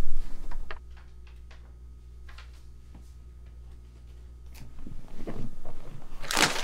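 Soft rustling and handling noises as a sheet of paper is handled and a person shifts on a leather couch: a loud burst at the start, then a low steady room hum, then more rustles over the last two seconds ending in a sharp knock.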